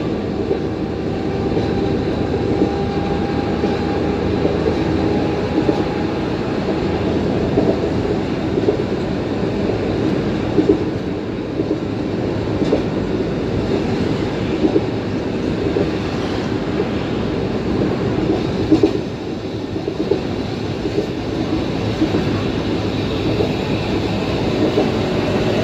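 Streetcar running along its track: a steady running noise with a few short clicks along the way.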